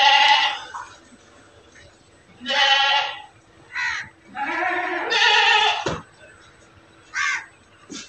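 A young calf bleating, about five separate calls. Most are short, and one runs about a second and a half.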